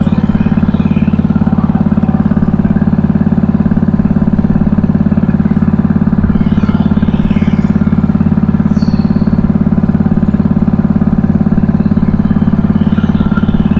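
Small fishing boat's engine running steadily at an even speed.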